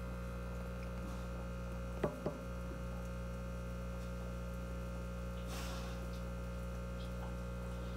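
Steady electrical mains hum with a constant low drone, broken by two light clicks about two seconds in and a brief soft rustle later.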